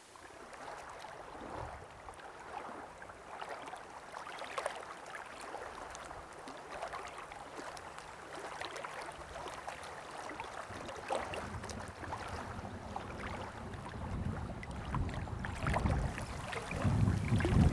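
Outdoor lakeshore ambience dominated by wind blowing across the microphone, a steady rush with scattered faint ticks. The low wind rumble grows louder over the last few seconds.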